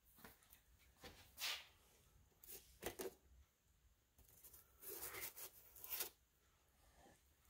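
Near silence broken by a few faint, brief rustles and taps as a small tube of epoxy is handled and set down on a piece of cardboard, with a slightly longer rustle about five seconds in.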